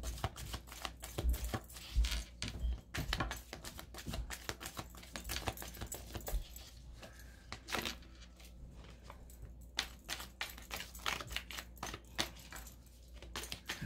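A deck of tarot cards shuffled by hand: a quick, uneven run of small clicks and slaps of card against card, thinning out briefly now and then.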